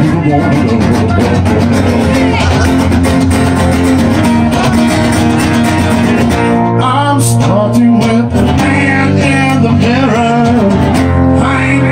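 Two acoustic guitars strummed live, with a man's voice singing over them from about halfway through.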